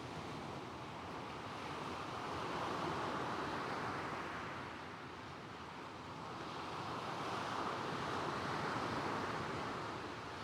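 Gentle waves washing over a shingle beach of stones and pebbles, the surf swelling and easing twice, under a soft coastal wind.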